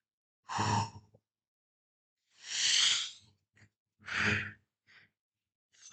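A man's heavy breathing, three loud gasping breaths about a second and a half apart. The middle breath is a longer, airy exhale, and the other two catch in the voice.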